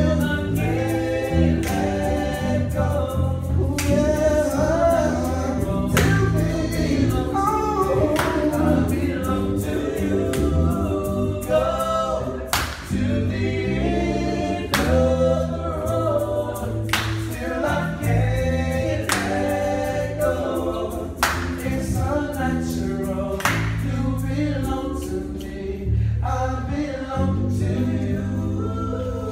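A group of street singers harmonizing in a soulful, gospel-style ensemble, backed by a guitar through a small amplifier that carries deep, held bass notes, with a sharp hit roughly every two seconds.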